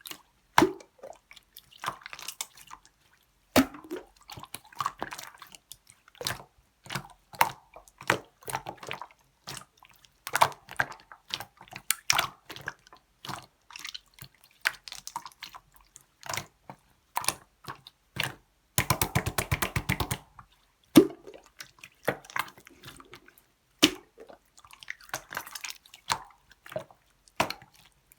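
Clear slime being squeezed and pressed by hand, making wet squishes and sharp clicking pops as air pockets burst. About nineteen seconds in comes a fast run of clicks lasting about a second and a half.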